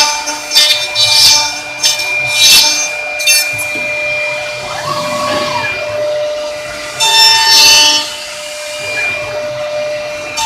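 Woodmaster WM-NC600 CNC dovetail-joint machine at work: its router spindles give a steady whine, with louder bursts of cutting as the bits pass through the wood, several in the first three seconds and one about seven seconds in.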